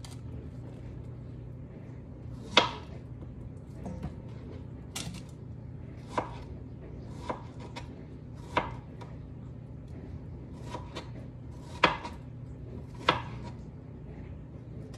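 Chef's knife slicing strawberries lengthwise, the blade knocking down on the cutting board in about ten sharp, irregular taps, roughly a second apart.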